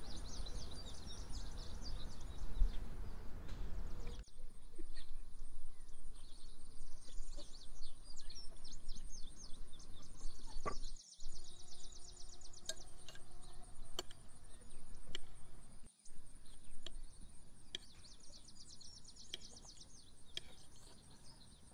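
Outdoor ambience of birds chirping and singing over a steady high-pitched buzz, with a few small clicks and knocks. The sound is rougher and fuller for the first four seconds, then changes abruptly, and it cuts out briefly twice.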